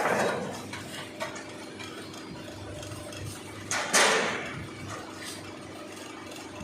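CNC bending machine running with a steady hum. Two loud metal impacts ring out, one at the start and one about four seconds in, with a smaller click between them.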